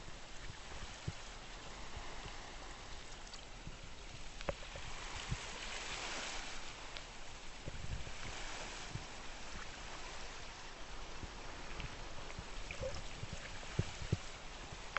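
Shallow seawater washing and lapping over sand at the water's edge, swelling up around five to seven seconds in, with scattered small clicks.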